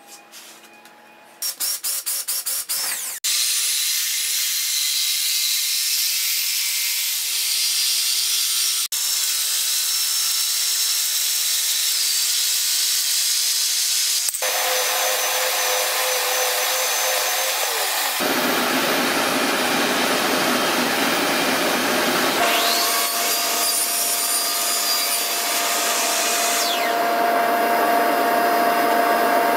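A short run of quick clicks, then power tools running in a string of short sections that each start and stop abruptly. Near the end, a DeWalt miter saw cuts through PVC pipe.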